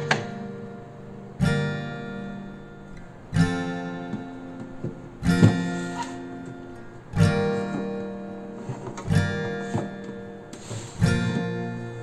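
Background music: a guitar strumming a chord about every two seconds, each chord ringing out until the next.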